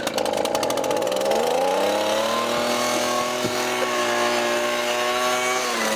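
Petrol leaf blower engine running after being pull-started, its pitch shifting over the first couple of seconds and then holding steady.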